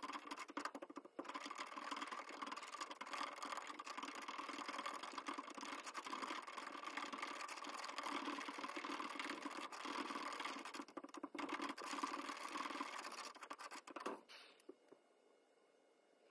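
Wooden stir stick scraping around the sides and bottom of a plastic mixing cup while stirring two-part casting epoxy resin. The stirring is steady and stops abruptly near the end.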